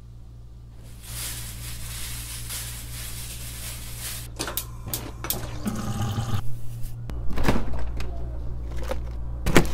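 Water running from a bathroom sink faucet, with a run of sharp knocks and clunks as the faucet is worked, over a steady low hum.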